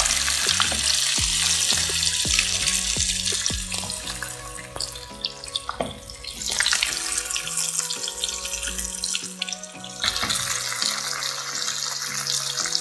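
Marinated mutton chops sizzling and crackling in hot ghee and oil in a pan, the sizzle easing and then surging again about six and ten seconds in as more chops go into the oil. Soft background music runs underneath.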